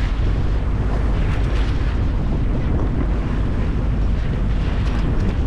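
Strong wind buffeting a GoPro's microphone, a steady low rumble, with the wash of water along a sailboat's hull under sail.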